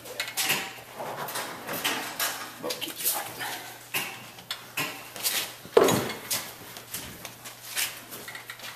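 Irregular handling sounds of hands and tools working at a wooden boat transom: scrapes, taps and knocks over a steady low hum, with one loud sharp sound about six seconds in.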